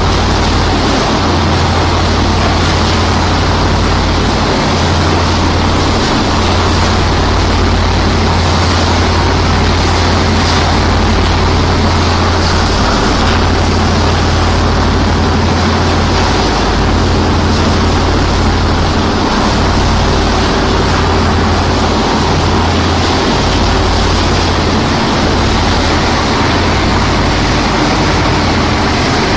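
Screw sand washing machine running: a loud, steady mechanical drone with a low hum under a constant rush of water and sand.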